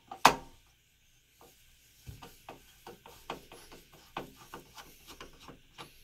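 Screwdriver turning out a CPU tower cooler's mounting screw: one sharp click just after the start, then a run of small irregular clicks and rubbing, two or three a second, from about a second and a half in.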